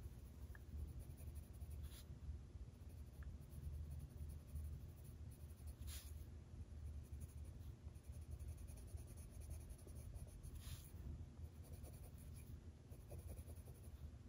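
Colored pencil shading on paper: a faint, soft scratching of the pencil lead, with a few slightly louder strokes, over a low steady hum.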